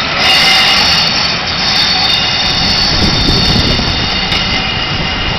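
Steam locomotive 60163 Tornado, a Peppercorn A1 4-6-2, with steam escaping in a loud, steady rush carrying a few high, held tones. A brief low rumble comes about three seconds in.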